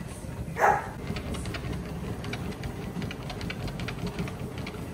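A dog treadmill running with a steady low hum while small dogs' paws tap on the moving belt, a few light ticks a second. One short, loud dog bark about half a second in.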